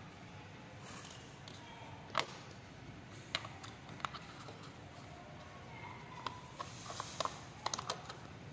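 A few scattered light clicks and taps, with a quick cluster of them about seven to eight seconds in, from a hand handling a round LED fog lamp and its cover.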